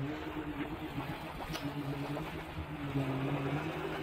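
Komatsu PC200 hydraulic excavator's diesel engine running, a steady low drone that wavers a little in pitch.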